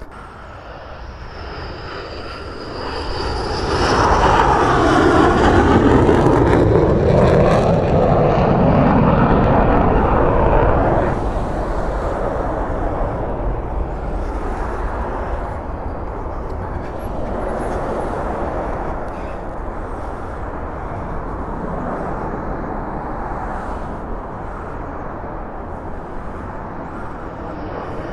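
Military fighter jet passing close overhead: the jet engine noise builds to a loud peak about four seconds in, with a sweeping whoosh that shifts in pitch, then drops back to a steadier, fainter rumble as it moves away.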